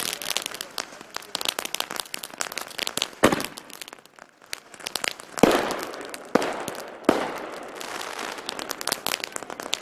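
Fireworks going off: a steady crackling of many small sharp pops, with four louder bangs about three, five and a half, six and a half and seven seconds in, each trailing off.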